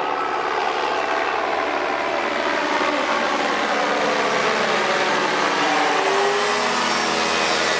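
Engine and propeller of a motorized hang glider (flex-wing ultralight trike) flying low overhead, running steadily, its pitch slowly falling as it passes.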